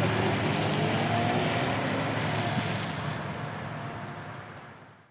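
A car driving away on a wet road: a steady rush of engine and tyre noise that fades out near the end.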